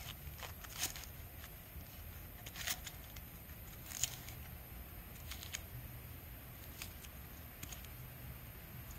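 Knife slicing green onions on a chopping board: a handful of short, sharp taps of the blade at uneven gaps, over a faint low rumble.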